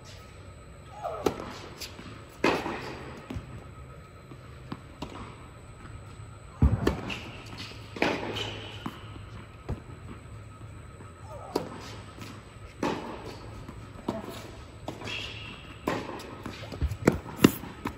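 Tennis rally on an indoor hard court: rackets striking the ball and the ball bouncing, a sharp pock every second or so, echoing in a large indoor tennis hall.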